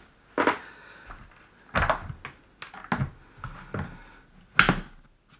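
A series of about nine separate clicks and knocks of small objects and tools being handled and set down on a workbench; the loudest, a sharp click, comes near the end.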